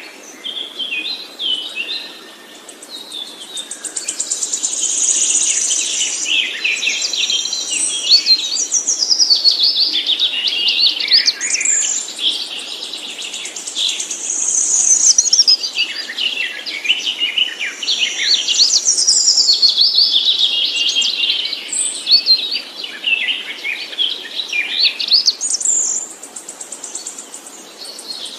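Songbird singing a long, fast, high-pitched warbling song of twitters and trills, easing off briefly about two seconds in and again near the end.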